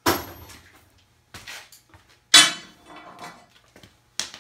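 Sharp metallic clanks and clinks of a 10 mm wrench working the nuts that hold the air box on a Predator 212 engine. A ringing clank comes at the start and a louder one a little past two seconds in, with lighter clicks between and near the end.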